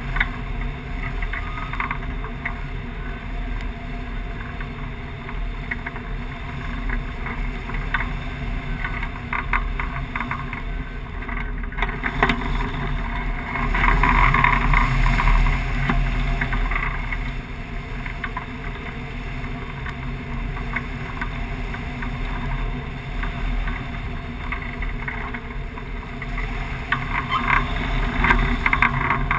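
Wind rushing over the microphone of a camera mounted on a hang glider's wing in flight: a steady roar with rapid crackling buffets, swelling louder about a quarter of the way in and again near the end.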